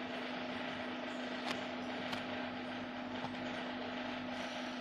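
A steady low hum over an even background hiss, with two faint clicks about one and a half and two seconds in.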